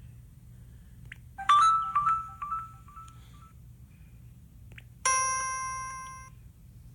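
Electronic chime tones from a speaker: a quick run of short ding-like notes, then a single bright bell-like tone that rings out and fades, over a steady low hum.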